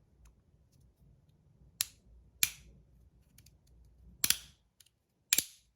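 3D-printed magnetic fidget slider clicking as its plates snap from one position to the next: four sharp, irregularly spaced clicks, one of them a quick double, with faint ticks of handling between.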